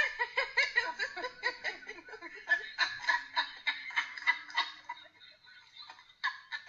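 High-pitched laughter, a rapid run of short giggles that dies away about five seconds in.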